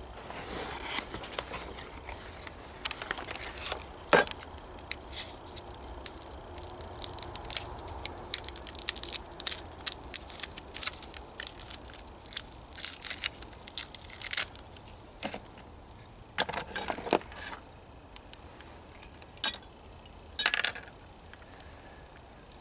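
Scattered small clicks, taps and rattles of hand tools and tire-plug kit parts being handled, with a couple of longer rustles near the end.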